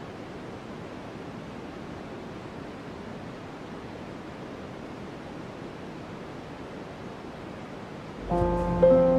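Steady, even rush of running water. About eight seconds in, soft music with held notes comes in over it and becomes the loudest sound.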